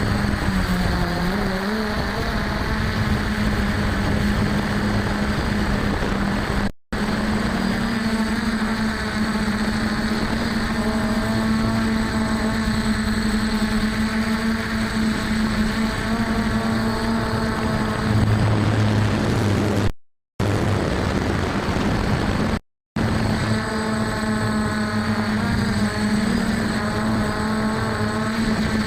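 F450 quadcopter's motors and stock propellers running steadily in flight, a strong steady hum with higher tones that rise and fall as the throttle changes. The sound cuts out briefly three times.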